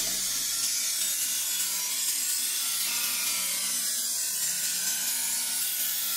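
Bench grinder's abrasive wheel grinding the edge of a steel scimitar blade held against it: a steady, high-pitched grinding of steel on stone.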